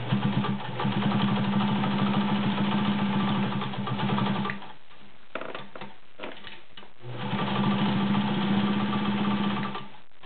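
White Model 764 sewing machine running at speed, stitching through 16 layers of cotton, in two runs of a few seconds each with a short stop between that holds a few clicks.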